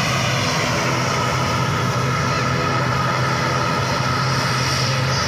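A Wings Air turboprop airliner's engines running steadily, with a constant low hum and a high whine over it.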